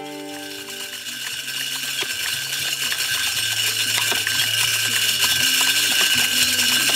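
Spin-cast deer feeder running: its motor whines steadily while the spinner flings feed that clicks and rattles against the brush and ground. The sound grows gradually louder.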